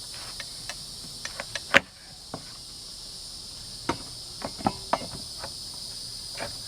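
Insects chirring steadily and high-pitched. Over this come scattered sharp knocks and clicks of steel on pallet wood and nails: the loudest is about two seconds in, and a cluster of them near the middle includes a brief squeak.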